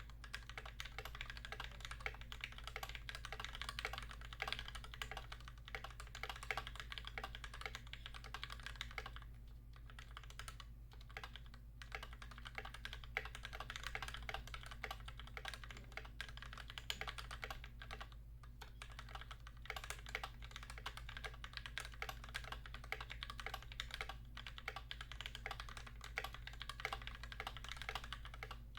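Fast, continuous typing on an Idobao ID80 mechanical keyboard with lubed Gateron GeekMaker Keyfirst Cream linear switches and Cubic-profile keycaps. The keystrokes come in a dense stream, with a couple of brief lulls about a third and two-thirds of the way through.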